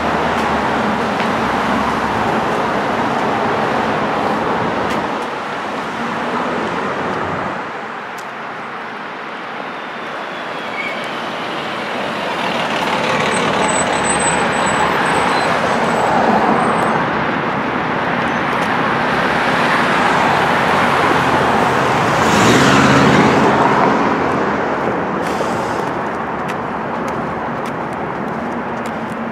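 Road traffic on a wide multi-lane street: a steady wash of passing cars and tyre noise, with a brief lull about a third of the way in. A louder vehicle passes with its engine plainly heard about three-quarters of the way through.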